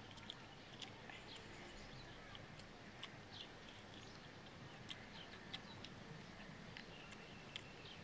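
Faint eating sounds: scattered soft clicks and smacks from chewing and from fingers mixing rice on a banana leaf, over a quiet steady background.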